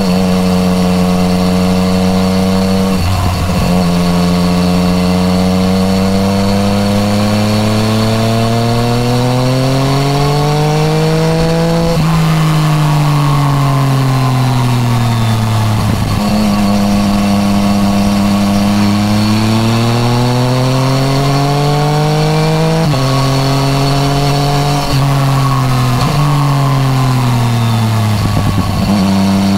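2015 Yamaha MT-09 Tracer's 847 cc inline-three running through an Akrapovic titanium full exhaust system, heard from the rider's seat. The engine note climbs steadily under acceleration and falls away as the throttle is eased off, several times over, with short breaks and sudden drops in pitch at gear changes.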